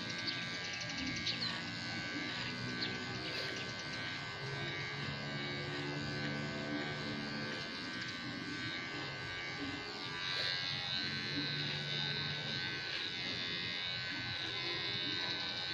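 Handheld electric hair clipper running with a steady buzz while being passed through hair on the head.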